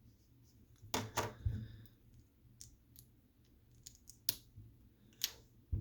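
Plastic Lego bricks clicking as pieces are pulled off the model and set down: a quick cluster of clicks about a second in, then a few single clicks near the end.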